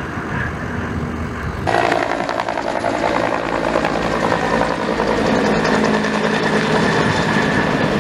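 Firefighting helicopter with a two-bladed main rotor flying close overhead, slinging a water bucket on a longline: rapid rotor blade chop over a steady turbine whine. It cuts in abruptly about two seconds in, after a stretch of wind noise.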